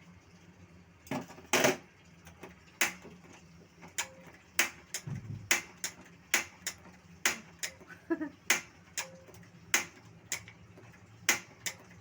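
Irregular sharp clicks and knocks, one or two a second, with the loudest pair about a second and a half in, over a faint low hum.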